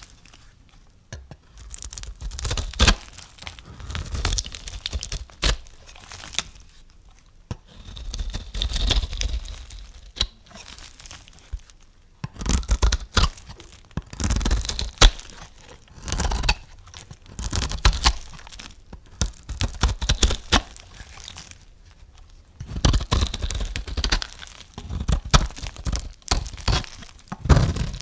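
Knife cutting through dry soap: crisp, crackling crunches in repeated strokes of a second or two each, with short pauses between.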